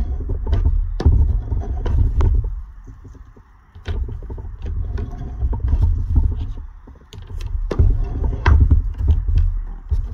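A shave hook scraping along lead welding sticks on a wooden bench to clean them. It comes in three spells of strokes, each a couple of seconds long, with a low rumble and light clicks under each spell.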